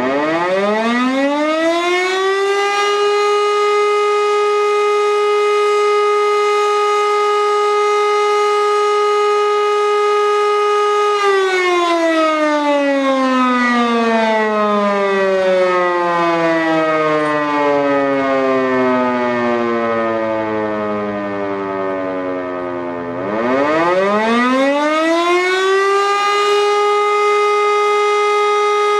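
Civil defence siren sounding a test alarm. It winds up to a steady howl within about three seconds and holds it for about eight seconds. It then winds down slowly over about twelve seconds, winds up again and holds the steady tone to the end.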